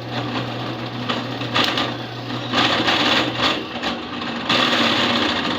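A small electric power tool's motor runs steadily, then cuts into material in three louder stretches during workshop fabrication.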